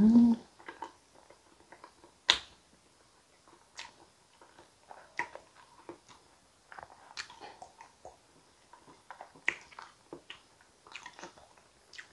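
Close-up eating sounds from thick sweet potato soup: soft chewing and wet mouth smacks, with a sharp click every couple of seconds. A brief loud hum of the voice comes right at the start.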